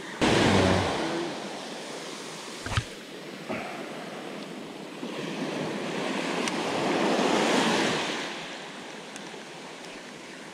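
Small waves washing up and back on a sandy beach: a loud rush of surf just after the start, then a slower swell that builds and fades around the middle. Two short knocks cut through near the three-second mark.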